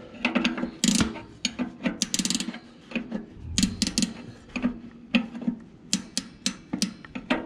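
A spanner turning the brake adjuster on a Ferguson TE20 tractor: a run of irregular metallic clicks and ratcheting.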